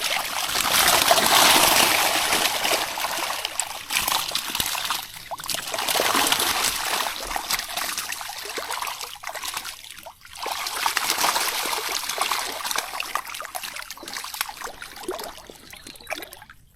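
Water streaming and splashing off a fish trap as it is hauled up out of the water by hand, coming in several surges that swell and fade.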